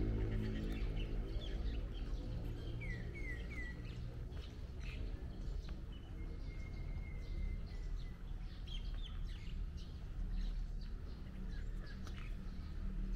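Outdoor ambience of small birds chirping, with three quick chirps about three seconds in and a thin held whistle around the middle, over a steady low rumble.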